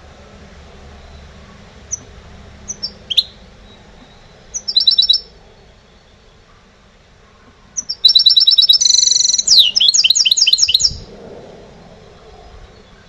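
Caged goldfinch hybrid (mixto de jilguero) singing: a few short, high chirps and a brief trill, then a loud, rapid phrase of repeated high notes lasting about three seconds.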